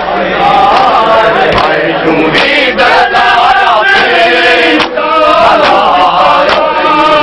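A crowd of men chanting a loud mourning lament together in unison. Now and then come sharp slaps of hands striking bare chests in matam.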